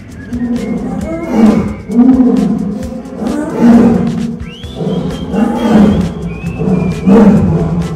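Lions roaring, a bout of about six deep roars, one every second or two.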